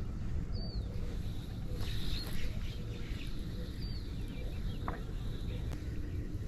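Small birds chirping, with two clear short downward-sliding chirps about half a second and four seconds in and a few fainter ones, over a steady low outdoor rumble. A single short click sounds near five seconds.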